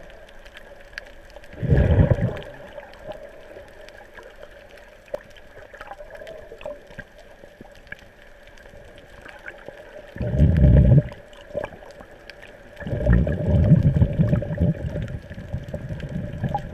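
Muffled underwater ambience with a faint steady hum, broken by low rushing surges of water moving past the submerged camera: a short one about two seconds in, another around ten seconds, and a longer one near the end.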